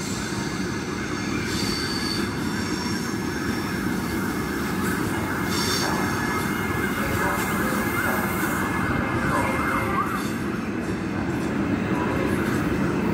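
Trenitalia double-deck electric train running slowly past the platform, with steady rumble and rail noise. Its wheels give thin squeals against the rails, most clearly past the middle.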